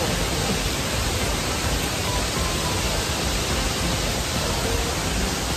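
Waterfall's steady rush of falling water, even and unbroken.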